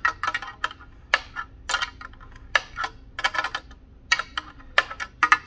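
Small 9 mm steel wrench clinking against a nut and the metal mounting bracket as the nut is snugged up: a string of irregular sharp metallic clicks and light clinks, several a second.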